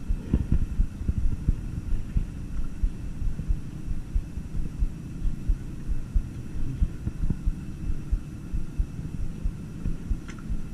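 Low, irregular rumble of quick thumps from wind buffeting and handling on a close camera microphone, with a faint steady high whine behind it.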